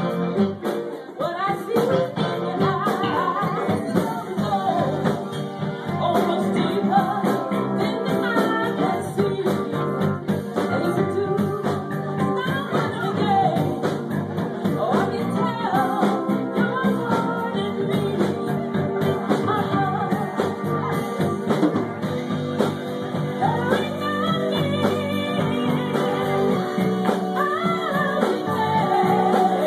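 Live band playing: a woman singing lead over electric guitars, keyboard and drums keeping a steady beat.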